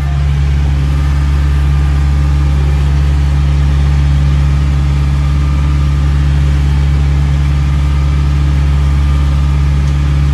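Boat engine running steadily under way, a loud, constant low drone.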